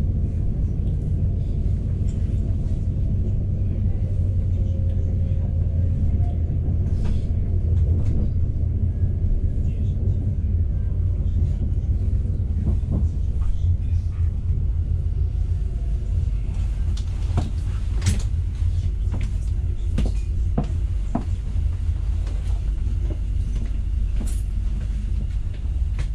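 Passenger train running along the track, heard from inside the carriage: a steady low rumble of the wheels and car body. From about two-thirds of the way through, sharp clicks and knocks come through the rumble.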